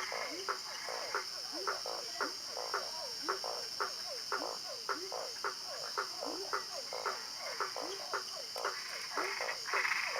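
Frogs calling: short croaks that drop in pitch, repeating about twice a second and overlapping one another. A steady high-pitched whine runs underneath.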